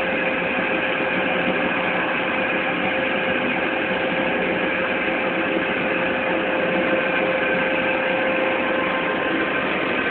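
Machine-shop machinery running steadily, a constant mechanical whir with a steady hum.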